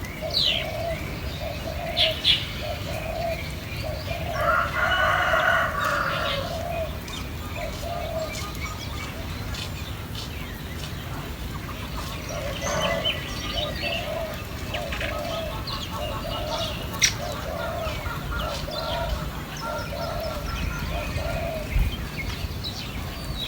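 Birds calling: a low hooting call repeated steadily, about every three-quarters of a second, with a few pauses. Short higher chirps from other birds come and go over it.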